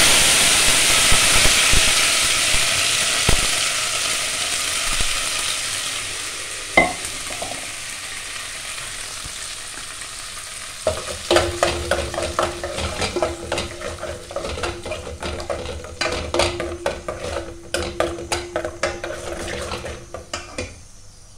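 Ginger-garlic paste sizzling in hot oil in an aluminium pot, the sizzle loud at first and dying down over about ten seconds as the paste's water cooks off. From about halfway, a ladle stirs the paste, scraping and clicking rapidly against the pot.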